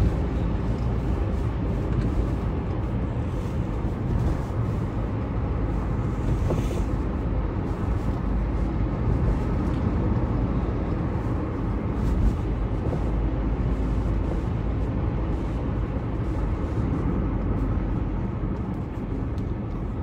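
Steady road and engine noise of a car driving at speed, heard from inside the cabin, mostly a low even hum.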